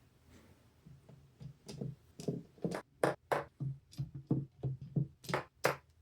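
A quick series of sharp clicks and taps from PC liquid-cooler parts and fans being handled and fitted. It starts after a quieter stretch of about a second and a half.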